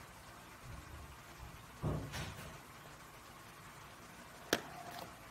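Kitchen handling noises as a metal spoon scoops flour into a stainless steel bowl on a kitchen scale: a few dull knocks about two seconds in, and two short sharp clicks near the end.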